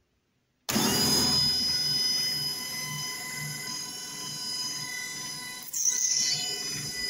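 JFJ Easy Pro disc repair machine starting suddenly under a second in and running with a steady whine as it spins the disc against the wet polishing pad, with a slow regular pulse underneath.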